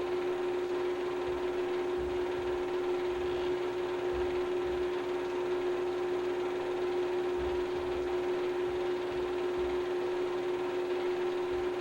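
Steady hum with an even hiss and no other sound: the background noise of a silent film transfer.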